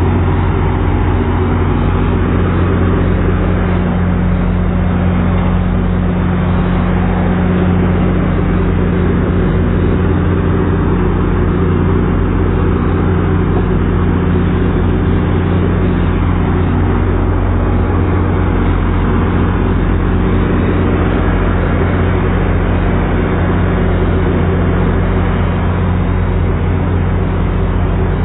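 Steady low hum of a GO Transit commuter train standing at the platform, its diesel power running at an even, unchanging pitch.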